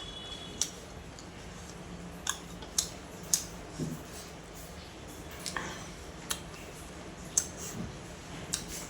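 Close-up eating sounds: irregular sharp clicks and smacks, about ten over several seconds.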